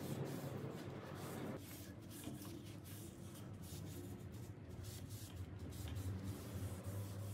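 Cloth rag rubbing finish onto round wooden dowels and rails, a faint soft scrubbing.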